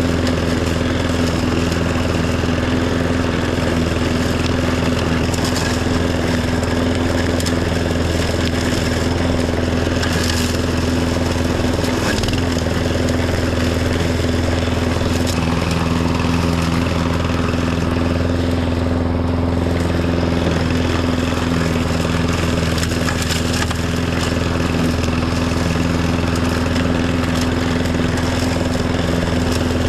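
Riding lawn tractor's engine running steadily under mowing load, at an even speed.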